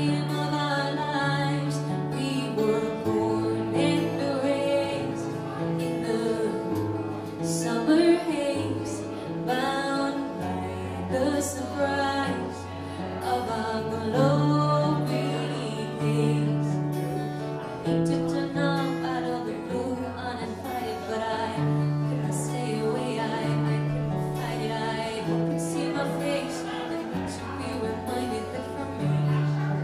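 A female vocalist singing a song to acoustic guitar accompaniment, the guitar playing a moving bass line under the melody.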